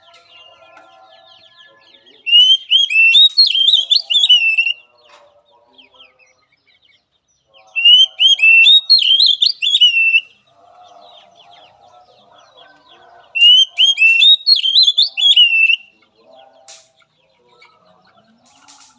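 Oriental magpie-robin singing: three loud phrases of rapid, rising-and-falling whistled notes, each about two and a half seconds long, with pauses of about three seconds between them.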